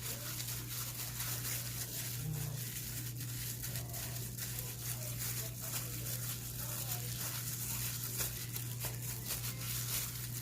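Gloved hand rubbing dry seasoning into raw chicken wings in a pan, making soft crinkling and rustling of the plastic glove and many small clicks. A steady low hum runs underneath.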